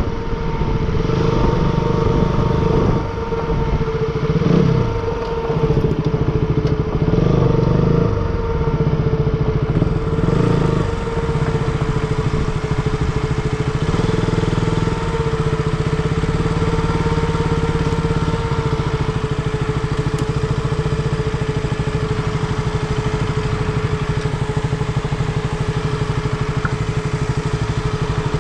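Motorcycle engine running under way. Its note rises and falls a few times in the first ten seconds, then holds steady.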